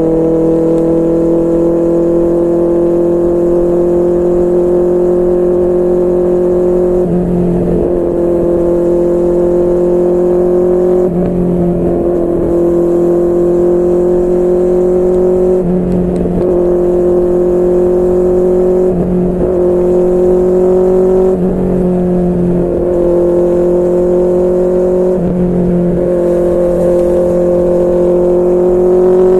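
QJMotor SRK600's inline-four engine through a Yoshimura R11 exhaust, running at a steady cruise under light throttle, its pitch slowly rising.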